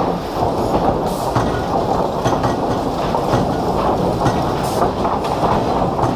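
Industrial wood-processing machinery running: a steady, loud rumble with a continuous clattering rattle and scattered clicks, like conveyors or rollers carrying timber.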